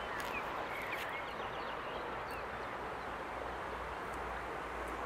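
Steady woodland background noise, with a few faint, short bird chirps in the first second.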